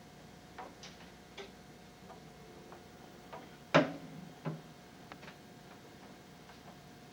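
Irregular light clicks and knocks of small objects being handled and set down on a bedside table, with one louder knock a little past halfway.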